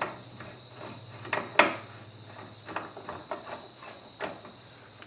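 Metal-on-metal clinks and knocks as a ball joint press's C-frame, adapter cups and forcing screw are handled and set against a steel lower control arm. There are a handful of light knocks, and the sharpest clink comes about a second and a half in.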